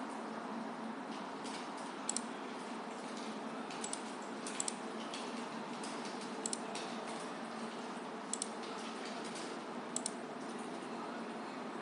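Computer mouse clicking, mostly in quick double clicks every one to two seconds, over a steady background hiss.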